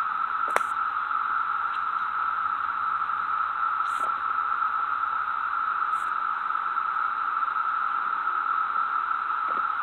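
A steady, even hiss like static, concentrated at a middling pitch, with a sharp click about half a second in and two faint ticks later.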